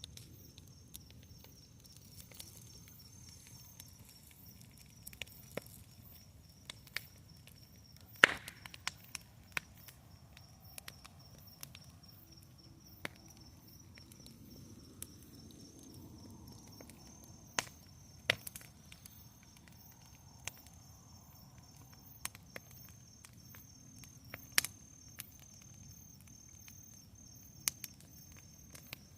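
Wood bonfire crackling, with irregular sharp pops and snaps over a low hiss; the loudest snap comes about eight seconds in.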